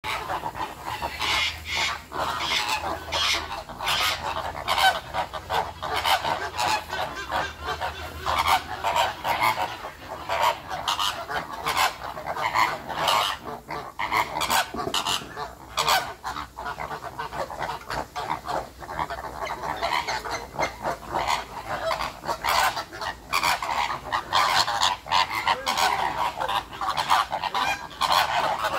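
A flock of flamingos calling without pause: many short honks overlapping in a continuous chatter.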